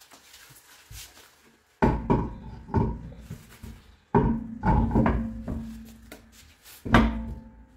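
Several sharp metallic clanks, each with a short ring, as a car's alloy wheel is seated on the rear hub and its wheel nuts are started by hand.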